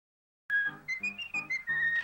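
About half a second of dead silence, then a cartoon character whistles a quick, jaunty tune. A small band plays chords on a steady beat underneath.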